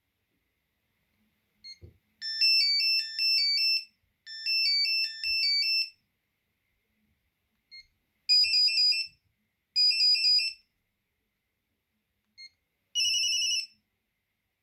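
Alcatel BC2 mobile phone previewing its built-in ringtone melodies one after another. Each starts with a short key beep, followed by a simple high-pitched beeping tune. Three different tunes are heard: the first plays twice, the second comes in two short bursts, the third is brief.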